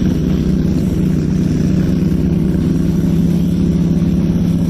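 Suzuki DR650 single-cylinder engine idling steadily close by, with an even pitch and no revving.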